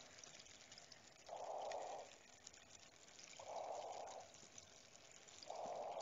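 Faint cave-water ambience: a soft rush of water swells up about every two seconds, three times, over a light trickle with occasional small drips.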